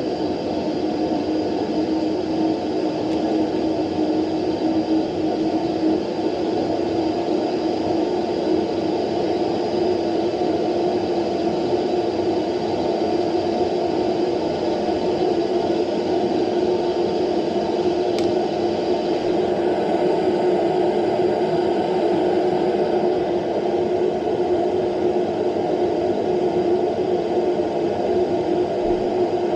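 Burnham Alpine condensing gas boiler firing at high fire in test mode, its combustion blower and burner running with a steady whir and hum.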